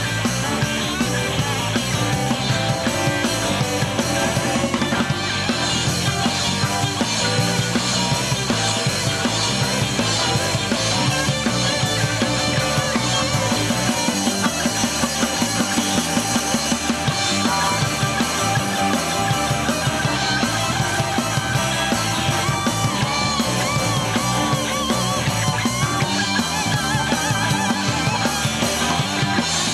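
Live blues band playing: harmonica cupped against a hand-held microphone, electric guitar, bass guitar, keyboard and drum kit.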